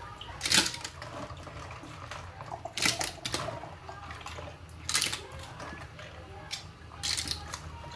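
Clams being rinsed by hand: handfuls lifted out of a bowl of water with a splash and a clatter of shells, four times, about every two seconds.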